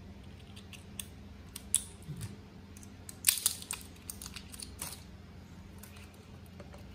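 Scattered small clicks and plastic crinkling as scissors snip and fingers peel the plastic wrap off a pair of AA alkaline batteries, then a battery is fitted into a blood pressure monitor's battery compartment; the sharpest run of clicks comes about three seconds in.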